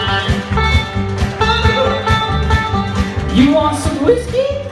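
A live country band playing: plucked guitar notes over a steady bass beat, in an instrumental passage.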